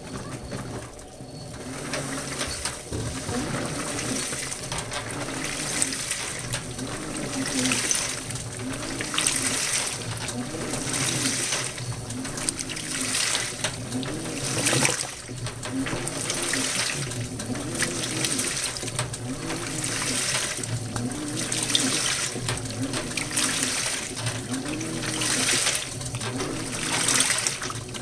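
2012 LG top-load washer agitating a load of towels and socks on its Heavy Duty cycle. Water sloshes and swishes in regular strokes, and a motor whine rises and falls with each stroke, about one every second and a quarter. The sound builds up over the first couple of seconds.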